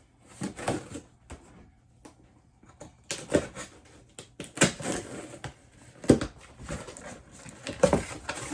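A cardboard box being opened and its contents handled: uneven bursts of rustling and knocks.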